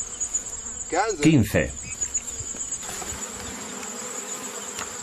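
Steady, high-pitched buzzing of insects, with a brief voice of falling pitch about a second in.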